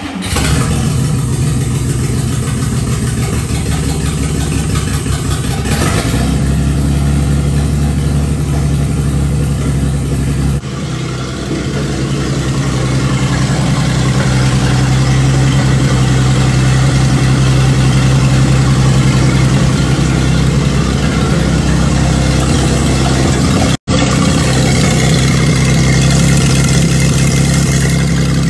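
Freshly rebuilt Chrysler flathead straight-six of a 1958 Dodge Power Wagon running steadily on its own, just after catching on its first start on fuel from its tank. The sound cuts out for an instant near the end.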